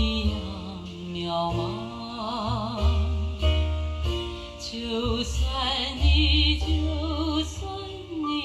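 Recorded operatic singing with a wide vibrato over long held bass notes, played back through a pair of 1957 Acoustic Research AR-3 three-way loudspeakers with Alnico-magnet drivers.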